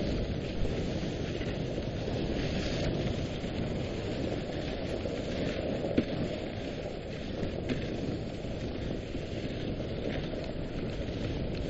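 Steady rushing, crackly noise of a dog sled running along a packed snow trail, its runners sliding over the snow, with a couple of short sharp knocks about a second in and around six seconds in.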